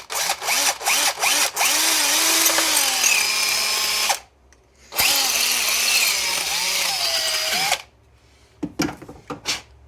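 Electric drill drilling out the hole in a small metal wing-window lock part. It starts with a few short stop-start pulses, then runs twice for a few seconds each with its pitch wavering, and a few light clicks follow near the end.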